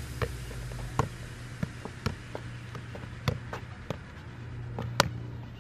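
Soccer ball being juggled off foot and knee: about ten short thuds at uneven spacing, over a steady low hum.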